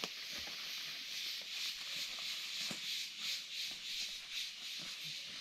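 Forest insects buzzing in a steady high hiss that pulses about three times a second, with faint rustling and snapping of footsteps through undergrowth.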